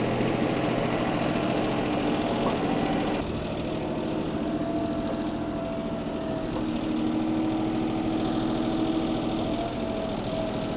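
Tractor engine running steadily while carrying a round hay bale into position, its note changing about three seconds in.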